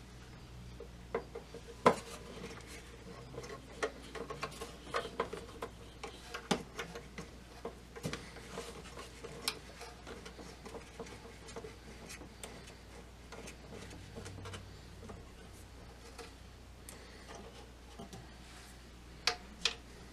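Scattered light metallic clicks, taps and rubbing as a Phillips screw is worked out of the tuning-coil bracket inside a Zenith Transoceanic radio's chassis. The clicks come thickest in the first half, with one sharper knock about two seconds in.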